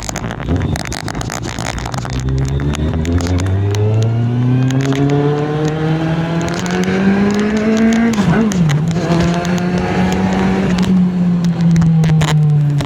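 Kawasaki Z750 inline-four motorcycle engine accelerating under way, its pitch climbing steadily for several seconds. About eight seconds in there is a quick drop and recovery as it shifts gear, then it holds a steady pitch, easing off slightly near the end. Rough noise and clicks run underneath.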